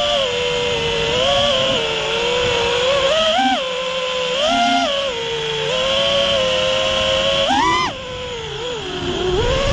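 Six-cell FPV quadcopter's brushless motors and props whining, the pitch rising and falling with the throttle, with short throttle punches and a steep climb in pitch near the end. A rushing wind noise runs under the whine.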